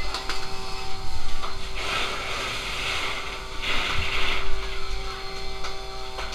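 An engine running steadily, with two loud bursts of hissing, about two and four seconds in.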